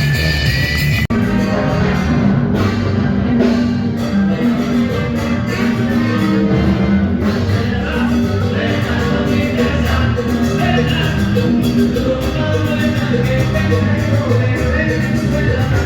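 Latin American music with a steady beat and a dense band sound. It changes abruptly about a second in, as if from one recording to another.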